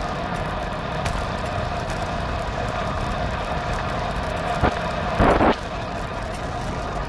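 Steady rumbling road noise, with a short louder burst of noise about five seconds in.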